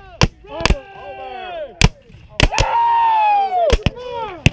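Scattered black-powder musket shots firing blanks, about half a dozen sharp cracks at uneven intervals, with several men yelling long falling cries between the shots.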